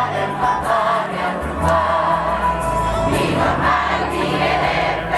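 Music with a group of voices singing, wavering melody lines over sustained low notes.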